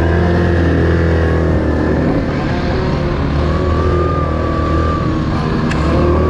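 Yamaha ATV's single-cylinder four-stroke engine running at a steady cruise, heard up close from on board. A thin steady whine joins about halfway through.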